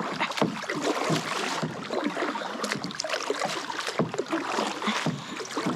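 Water splashing and sloshing around a kayak, with irregular small knocks and rustles as a fish is brought in.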